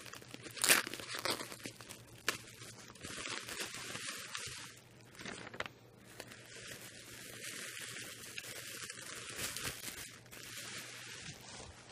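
Blue tape being ripped off bubble wrap, a few sharp tearing sounds, followed by the plastic bubble wrap crinkling and rustling as it is pulled open.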